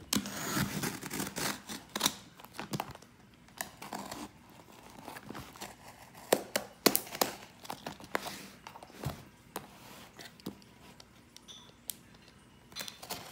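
A utility knife slitting clear packing tape along the seams of a cardboard shipping box: scratchy tearing and crinkling of tape, with sharp clicks and scrapes of blade and cardboard, coming in separate strokes.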